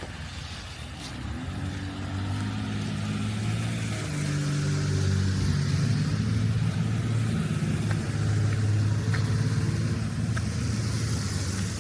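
A motor vehicle's engine running close by, growing louder over the first few seconds and then running steadily.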